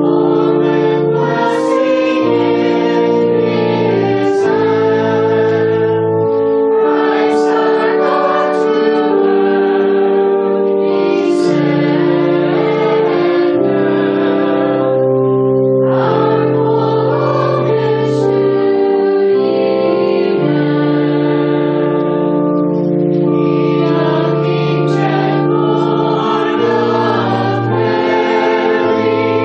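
Several voices singing a slow hymn in chordal harmony, each chord held for a second or two.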